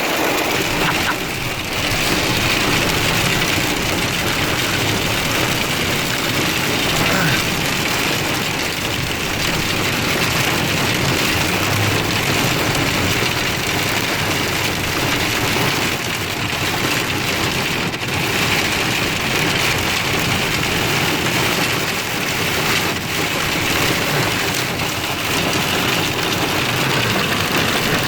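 Very hard rain pouring down steadily in a severe thunderstorm, a dense even hiss that holds at the same level throughout.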